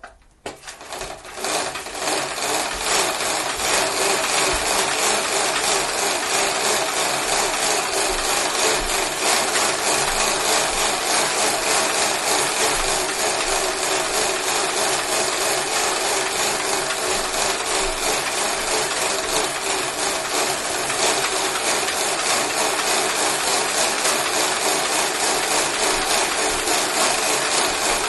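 Exercise bike being pedalled, its spinning wheel making a steady whirring, rubbing hum. It builds up over the first two to three seconds as it comes up to speed, then holds level.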